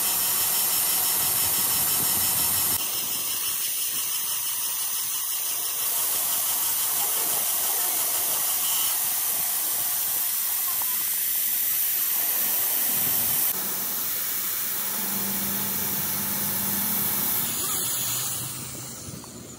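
Tool-post grinder on a lathe grinding the steel bore of a drive-shaft yoke: a steady, high hiss of the abrasive wheel on metal, with a few sudden shifts in level. A low hum comes in over the last few seconds as the grinding dies away.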